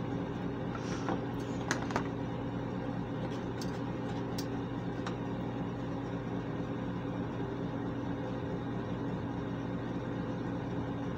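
Steady hum of a bathroom ventilation fan, with a few small clicks in the first few seconds from a clear plastic makeup case being handled and opened.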